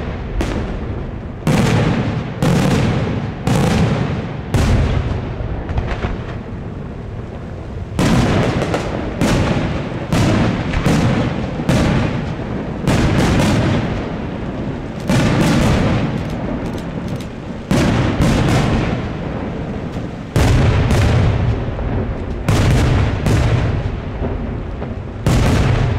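Daylight fireworks display: aerial shells bursting overhead in loud reports about once a second, each trailing off in echo. The reports come in quicker clusters partway through, after a short lull.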